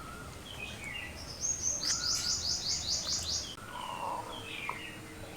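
A bird singing a quick run of about nine high, falling notes over about two seconds, with a few shorter chirps before and after it.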